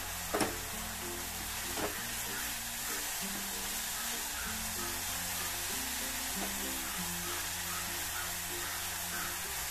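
Grated coconut mixture sizzling in ghee in a pan while a silicone spatula stirs it, with two sharp knocks in the first two seconds. Background music with held low notes plays throughout.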